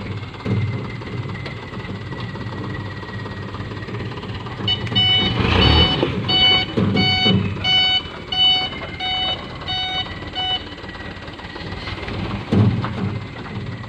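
Light dump truck's engine running and revving as the truck manoeuvres. A reversing alarm beeps about twice a second for some six seconds in the middle, the sign that the truck is backing up.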